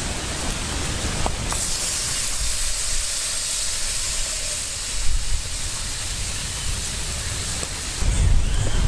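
Water poured into a pan of hot oil and fish roe over a wood fire, hissing and sizzling strongly from about a second and a half in. Wind rumbles on the microphone at the start and again near the end.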